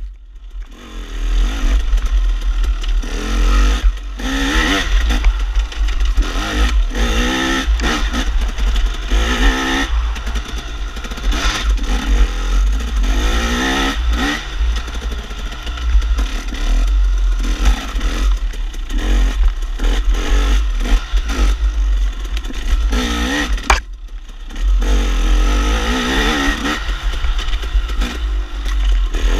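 KTM dirt bike engine revving up and down again and again as the throttle is worked, with heavy wind buffeting on the microphone. The engine drops off briefly twice, right at the start and again late on.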